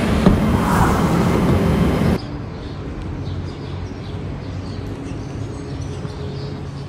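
Layered urban ambience sound design with a low rumble, cutting abruptly about two seconds in to a much quieter, steady background of city noise with a faint low hum.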